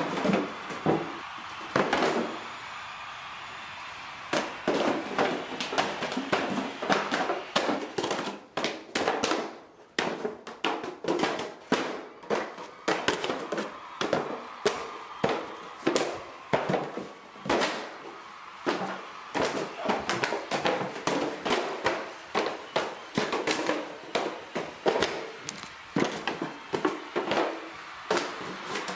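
A rapid, irregular barrage of punch impacts, dozens of sharp hits, over background music. There is a short lull about two seconds in.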